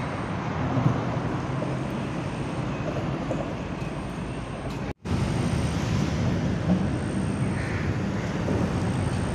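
Steady rumble of road traffic crossing the bridge overhead, heard from beneath the deck, with a momentary break about five seconds in.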